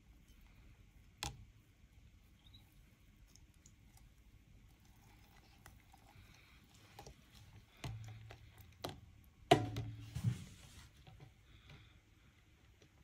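Metal spoon stirring liquor-soaked popcorn in a clear plastic jar: faint wet scraping, with a few sharp clicks of the spoon against the jar, one a second in and a cluster in the second half, the loudest about two thirds through.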